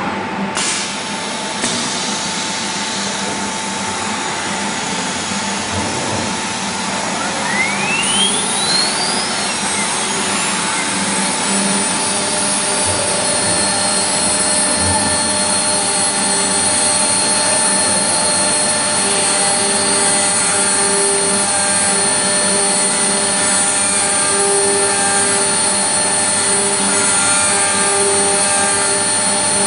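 Four-axis CNC milling machine running with a steady mechanical whir and hum. Two sharp clicks come near the start, and a whine rises steeply in pitch about eight seconds in.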